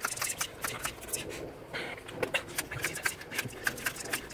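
Lezyne Micro Floor Drive mini floor pump worked by hand in rapid repeated strokes, each stroke a short hiss of air with a squeak and click from the pump, inflating a wide mountain-bike tyre.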